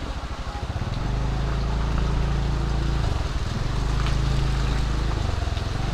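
Motorcycle engine running while riding, its pitch and level dipping and picking up again a few times with the throttle, under a steady hiss of heavy rain and wind.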